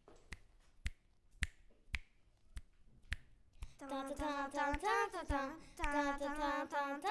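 Sharp clicks keep a steady beat of about two a second. A little past halfway, a child's voice starts singing a tune over them.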